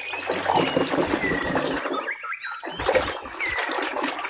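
Water splashing and sloshing as a muddy toy gun is washed clean by hand.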